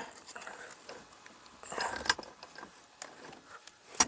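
Faint metallic clicks and handling noises of a socket on a long extension being fitted to the cylinder-head bolts of a 125cc motorcycle engine, with one sharp click near the end.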